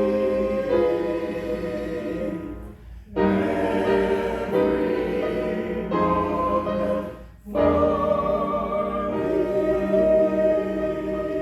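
A hymn sung by a group of voices with musical accompaniment, breaking off briefly twice between phrases.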